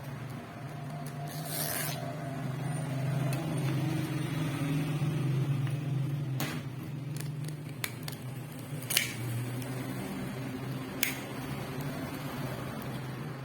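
Hands handling vacuum cleaner parts: a brief hiss, then a few sharp clicks spread over several seconds, over a steady low hum.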